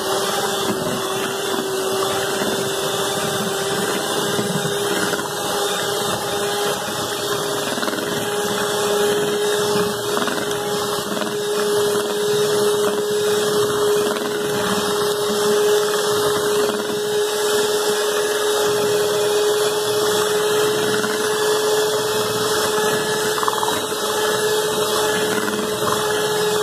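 Electric hand mixer running at a steady speed, a constant motor whine, its twin beaters whisking whipped cream and condensed milk together in a bowl.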